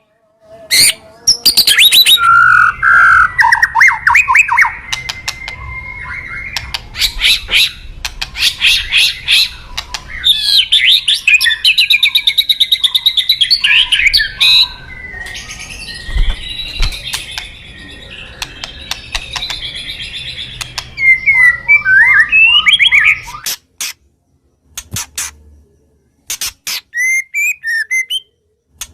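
White-rumped shama (murai batu) singing a fast, loud, varied song of rattling trills, harsh chattering notes and whistles. The song breaks off about 23 seconds in, leaving only a few short clicks and chirps near the end.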